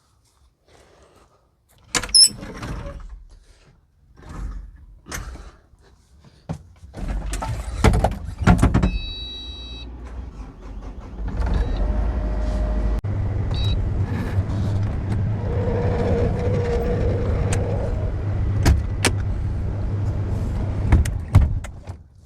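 Knocks and metal clanks from equipment being handled, with a loud knock about two seconds in, then a steady low machine hum that sets in about halfway and runs on with a few sharp clicks over it.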